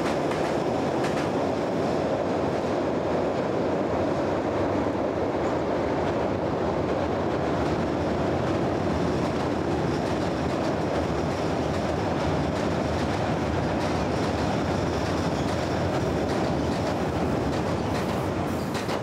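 Electric commuter train crossing a steel truss railway bridge: a steady, loud running noise of the wheels on the rails and the steel span.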